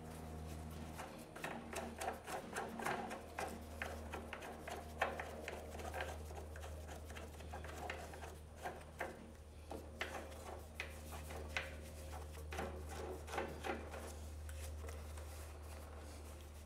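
A work glove and a white plastic slip nut on a sink drain tailpiece being turned by hand: faint, irregular clicking and rubbing over a steady low hum.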